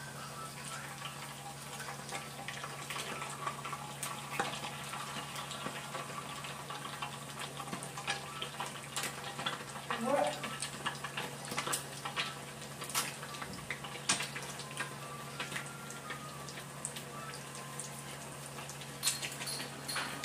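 Okoy, a shredded squash and cabbage fritter, deep-frying in hot oil: a steady sizzle with frequent sharp crackles and pops.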